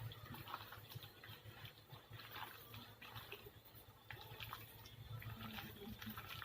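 Faint, irregular wet squelching of boneless chicken pieces being mixed into a thick egg, cornflour and spice-paste marinade.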